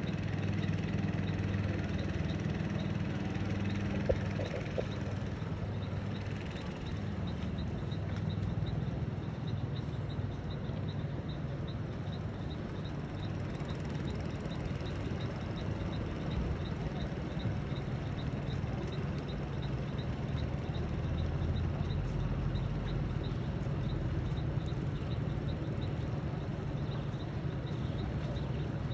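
An engine idling steadily, with a faint, regular high ticking running over it.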